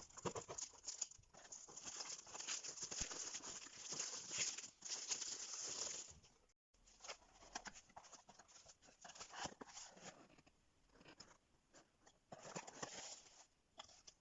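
Packaging being handled during an unboxing: paper or wrapping rustling and crinkling in uneven bursts, denser in the first half. The sound cuts out completely for an instant about six and a half seconds in.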